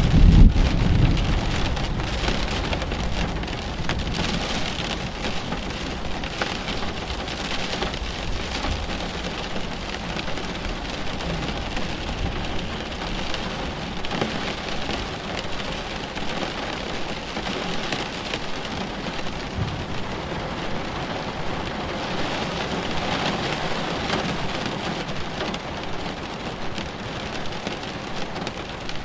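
Steady rain falling during a thunderstorm, with a low rumble of thunder dying away in the first couple of seconds.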